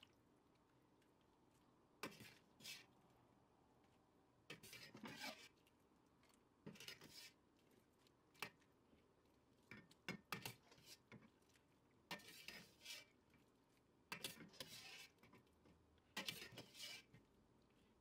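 Faint scrapes and clinks of a kitchen utensil against a metal pan and a ceramic serving plate as boiled dumplings are scooped across. They come in short bursts every second or two.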